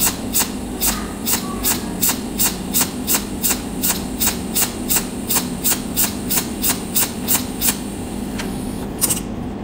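Cold welding machine's handheld torch firing a steady train of pulse discharges on thin metal plates: sharp snapping clicks about two and a half times a second. They stop about eight seconds in, with one more shortly after, over a steady low hum.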